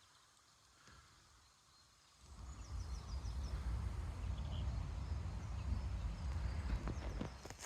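Wind rumbling on the microphone, setting in about two seconds in, with a brief, faint chirping of a distant small bird in the middle.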